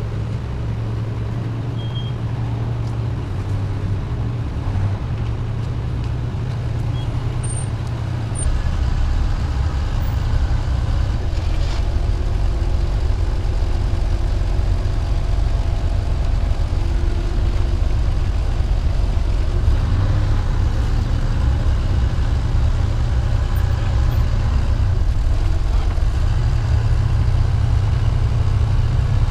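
Propane-powered Hyster forklift engine running steadily while it carries a heavy lathe, with a deep drone that gets louder about eight seconds in.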